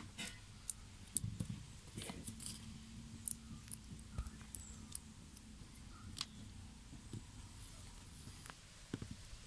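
Faint, scattered soft clicks and rustles of hands peeling bananas and handling fruit on a cutting board.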